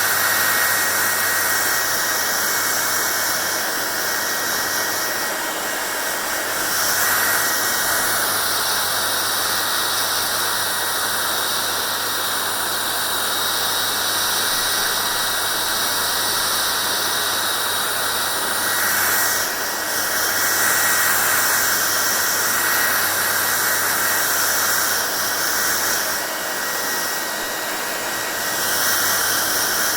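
Hair dryer running continuously: a steady rush of blown air with a thin high whine and a low motor hum. Its tone and loudness shift slightly every few seconds.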